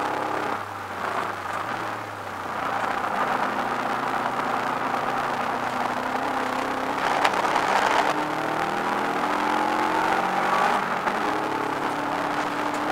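Subaru Impreza WRX's turbocharged flat-four engine heard from inside the cabin at racing speed. The note dips briefly near the start as the throttle comes off, then climbs and falls as the car accelerates and changes gear, with a louder moment about seven seconds in.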